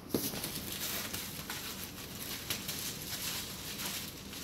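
Bubble wrap and cardboard packing being handled: an uneven run of small rustles and crinkles.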